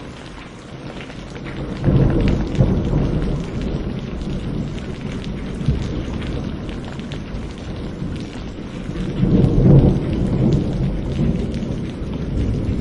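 Thunderstorm: steady rain falling, with thunder breaking into a loud low rumble about two seconds in that rolls on and swells to a second peak near the end.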